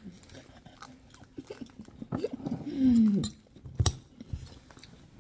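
Chewing and mouth sounds of someone eating rice, with small clicks of a metal spoon against a stone bowl and one sharper click near the end. About two seconds in, a short voiced sound falls in pitch and is the loudest thing heard.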